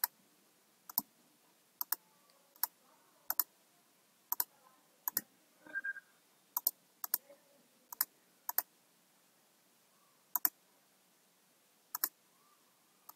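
Computer mouse button clicking, about twenty single and double clicks at irregular intervals, with near silence between them.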